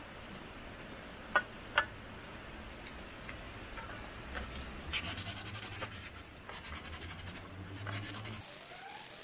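Wood being worked by hand while shaping a bushcraft wooden spoon: two sharp clicks about a second and a half in, then a run of quick scratching and rubbing strokes on the wood from about halfway, stopping shortly before the end.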